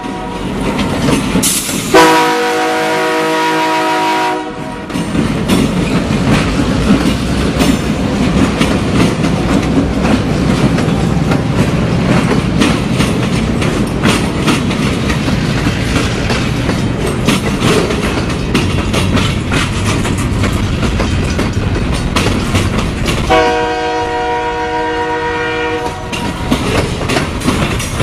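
Diesel freight train passing close by: the locomotive's chord horn sounds one long blast about two seconds in, then the freight cars roll past with a steady rumble and clickety-clack of wheels over the rail joints, and the horn sounds twice more near the end.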